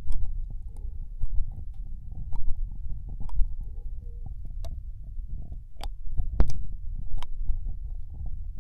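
Wet ear-licking on a binaural microphone, in the right ear only: a low, muffled rubbing rumble broken by sharp wet mouth clicks and smacks at irregular moments, the loudest a little past halfway.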